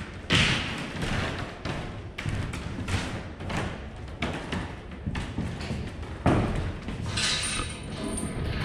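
Irregular thuds and knocks from footsteps and handled gear inside a steel shipping-container fire-training simulator. The two loudest heavy thuds come about a third of a second in and about six seconds in.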